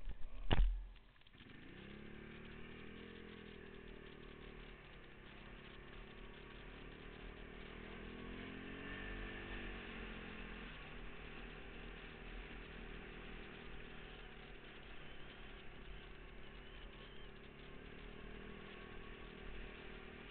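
Quad (ATV) engine running under way on a gravel road, heard from on board: its pitch climbs as it accelerates a couple of times, then holds fairly steady. A sharp thump comes right at the start.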